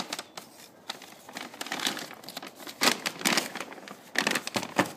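Small paper parts bag crinkling and rustling as it is handled, in uneven spells with short gaps.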